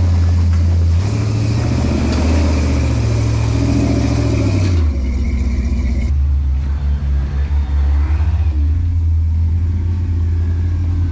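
Off-road rock crawler's engine revving hard under load for about five seconds as it is driven up a slippery gravel climb with momentum, then dropping back to a lower, uneven run.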